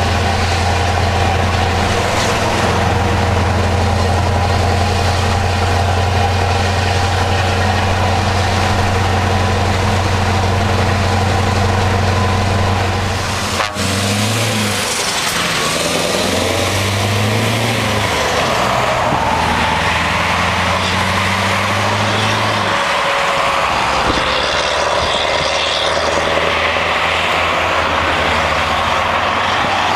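Scania 164L 480's 16-litre V8 diesel running at steady revs, heard from inside the cab. About fourteen seconds in the sound cuts to the truck driving on the road, its engine note dipping and rising several times, then holding steady. Near the end it gives way to passing road traffic.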